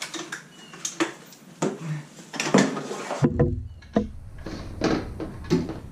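Irregular metal clinks and knocks of tools and parts being handled during a transmission install. About three seconds in, the background changes abruptly to a steady low hum under further knocks.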